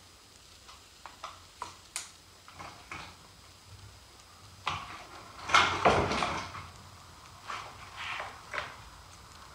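Metal hand tools clicking and clinking as an adjustable wrench is worked on the bolts holding a stick edger's engine. A louder clatter lasting a second or so comes a little past halfway.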